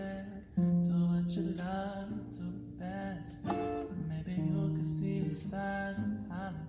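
Acoustic guitar played and strummed, with a voice singing a slow melody over it.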